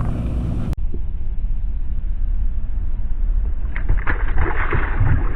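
Steady low rumble of a fishing boat under way on a river, with an abrupt edit cut about a second in and a rising hiss near the end.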